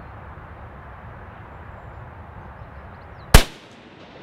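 A single gunshot from a Type 99 Arisaka bolt-action rifle in 7.7x58mm Japanese, fired about three seconds in. It is sharp and very loud, with a brief echo trailing off, over a steady background hiss.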